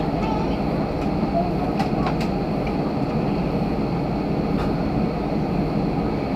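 Steady low rumble of a jet airliner's engines and airframe, heard from inside the passenger cabin while the plane sits or rolls slowly on the taxiway before take-off, with a few faint clicks about two seconds in.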